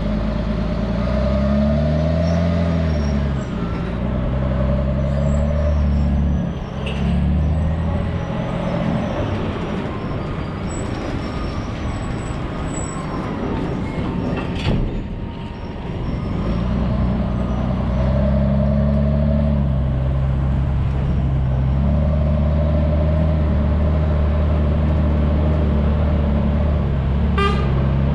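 Diesel engine of a Volvo A30C articulated dump truck running under way, its pitch rising and falling with the throttle early on. The engine eases back for several seconds around the middle, then pulls steadily again. There is a single sharp knock about halfway through.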